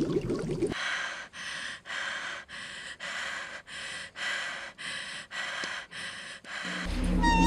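A woman breathing hard and fast, about two gasping breaths a second, like someone panting in distress. It opens with a brief underwater bubbling, and a low steady drone comes in near the end.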